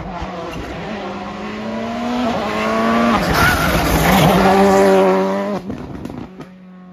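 Volkswagen Polo rally car passing at speed: the engine revs climb, dip at a gear change, and climb again as it comes by. It is loudest in the middle and drops away about two thirds of the way in.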